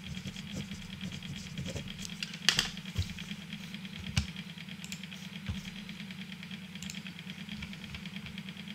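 A few sharp computer mouse clicks, the loudest about two and a half and four seconds in, over a steady background hum.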